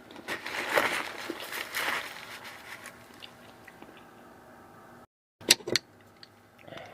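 Eating crab: crunching and chewing through the first two seconds, fading to quieter handling. After a brief dropout, two sharp cracks of crab shell.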